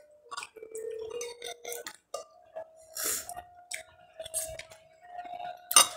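Close-up eating sounds: a spoon clinking and wet mouth smacks and slurps while chewing a spoonful of rice and braised chicken, with one sharp, loud click near the end.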